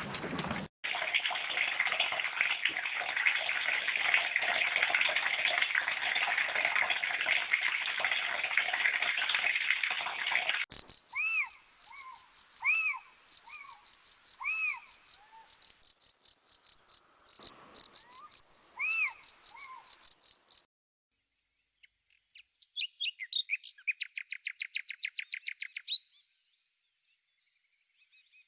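A string of nature sounds. First about ten seconds of a steady rushing like running water, then crickets chirping in regular high pulses with short bird calls over them. After a short gap comes a briefer rapid trill.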